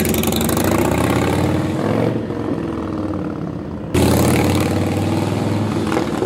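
Harley-Davidson Softail's 103-cubic-inch V-twin running through a Vance & Hines 2-into-1 Pro Pipe exhaust. It drops in level about two seconds in and comes back up abruptly about four seconds in.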